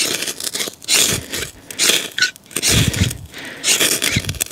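A 14C28N steel knife scraped firmly down a ferrocerium rod in repeated strokes, about one a second, striking sparks onto scraped hardwood dust to light it.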